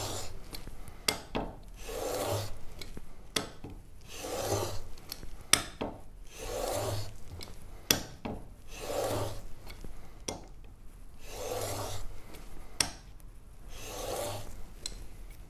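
A chisel clamped in a metal honing guide is rubbed back and forth on 320-grit sandpaper laid on a glass plate, grinding the bevel to remove the small nicks along the cutting edge. The scraping comes in about seven slow, even strokes, roughly one every two seconds, with sharp clicks between them.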